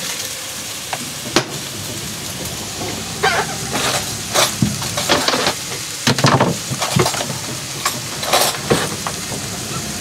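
Knocks and clatter of a galley drawer being rummaged for onions and a plastic cutting board being set down on the counter, over a steady hiss. The knocks come thickest in the middle few seconds.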